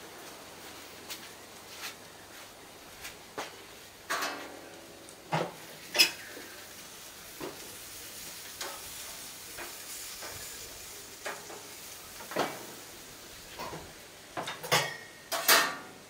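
Rainbow lorikeets pecking and shuffling on a hanging wooden tray feeder: scattered light clicks and taps over a faint steady hiss, the loudest about six seconds in and twice near the end.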